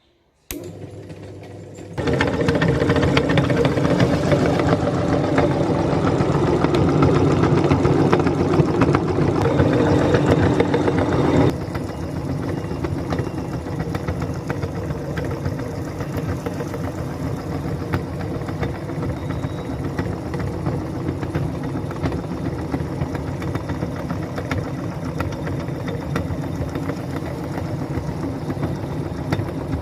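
Electric meat grinder motor starting about two seconds in and running with a steady hum. It is louder and rougher for roughly the first ten seconds, then runs on steadily and more quietly.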